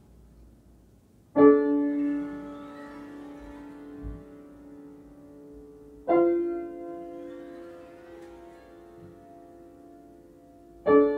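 Slow piano music: a single chord struck three times, about five seconds apart, each left to ring and fade away.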